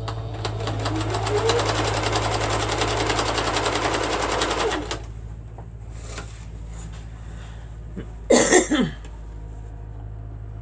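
Sewing machine stitching through a quilt at speed for about four seconds, its motor pitch rising as it speeds up and dropping as it stops. A quieter steady hum follows, broken by a brief loud noise about eight seconds in.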